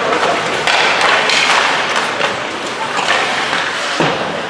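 Ice hockey play: skates scraping the ice and knocks of sticks, puck and bodies against the boards, with a sharper thud near the end, over spectators' voices.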